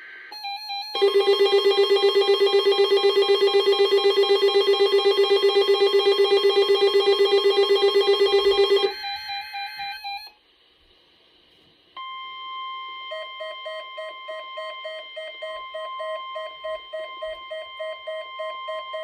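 Emergency Alert System test tones on the radio. Short high warbling data bursts come first, then a loud, rapidly pulsing alert tone for about eight seconds. After a brief quiet gap, a steady high alert tone sounds with a quick beeping over it.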